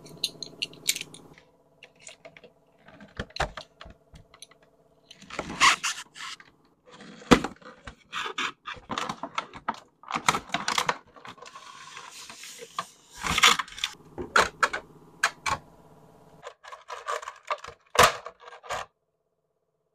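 An action-figure window box being opened by hand: cardboard flaps and tabs scraping and tapping, and a clear plastic packaging tray rattling and crinkling as it is slid out and handled, in irregular clusters of clicks and rustles.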